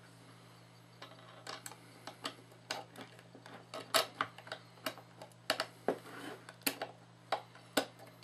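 Small screwdriver driving a screw into the metal housing of an LED flood light: sharp irregular metal clicks and taps, sparse at first and louder from about halfway, over a faint steady hum.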